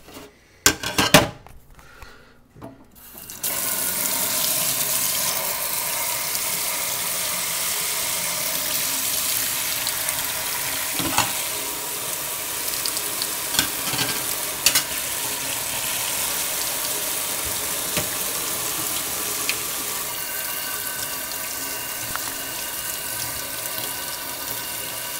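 A few knocks and clinks, then a tap turned on about three seconds in, running steadily into a sink, with occasional clinks of dishware under the stream.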